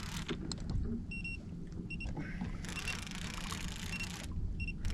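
Short high electronic beeps, several at irregular intervals, over a steady low rumble and stretches of hiss that come and go.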